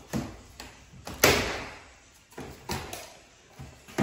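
Pliers pulling staples out of the wooden jamb of a pre-hung interior door: a series of sharp clicks and knocks of metal on wood, the loudest a little over a second in. The staples hold the two halves of the split jamb together and have to come out before the halves can separate.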